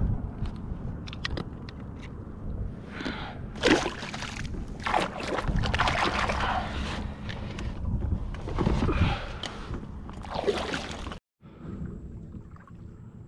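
Water sloshing and splashing against a kayak hull in irregular surges. About eleven seconds in, the sound cuts out and gives way to a quieter, steady hum.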